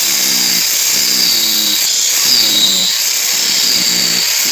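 Angle grinder running loud under load, with a strong high hiss, while its motor pitch sags and recovers about once a second as the disc is worked.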